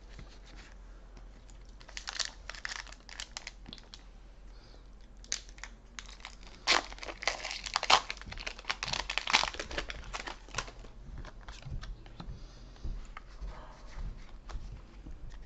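Foil booster pack wrapper crinkling and tearing as it is ripped open, in irregular crackly bursts that are loudest in the middle, then fainter rustling as the cards are handled.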